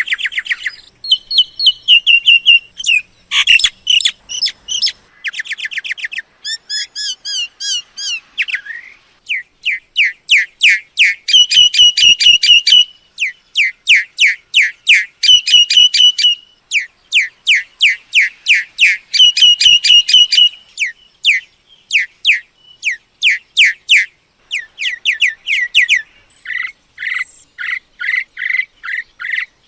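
Myna calls: a loud, unbroken series of quick repeated whistled and chattering notes in changing phrases, a call recording played to lure mynas in.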